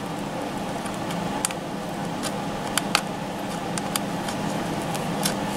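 Light plastic clicks and ticks as pop tabs on a saxophone Santa animatronic's hard plastic body are pried at by hand, a few separate clicks over a steady low hum and hiss.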